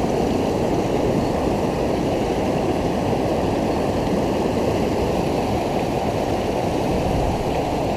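Fast, shallow river water rushing through rapids close to the microphone: a steady, even rush.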